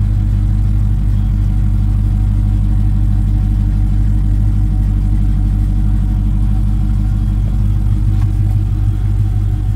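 2020 Dodge Charger Daytona's HEMI V8 idling, a steady, even low rumble.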